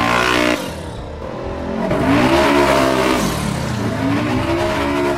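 Polaris RZR XP side-by-side's engine revving up and falling back, about twice.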